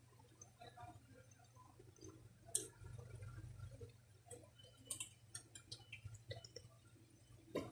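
Faint clicks and taps of small metal parts from a Daisy Power Line 1200 CO2 air pistol, handled and fitted together by hand during disassembly. There is a sharper click about two and a half seconds in and a run of small clicks later.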